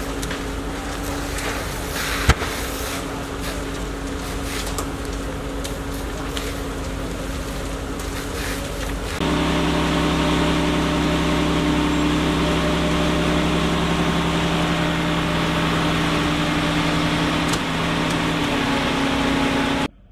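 Steady hum of running fire-engine motors and pumps at a large fire, with scattered cracks and snaps and one sharp crack about two seconds in. About nine seconds in it cuts to a louder, deeper, steady engine drone with a couple of held tones, one of which drops out near the end before the sound stops abruptly.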